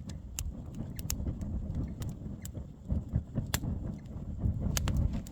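Wood fire burning, with scattered sharp crackles and pops over a steady low rumble.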